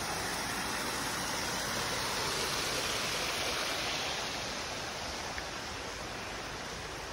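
A small forest waterfall and stream rushing steadily over rocks, easing a little in loudness in the second half.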